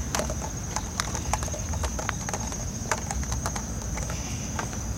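Footsteps on pavement with irregular hard taps and clicks, several a second, as a person walks with a walking staff. A steady high-pitched whine and a low rumble run underneath.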